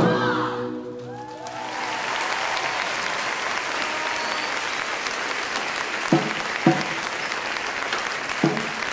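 Drum music dies away in the first second or two, then a large audience applauds steadily. Three short, dull thumps sound near the end.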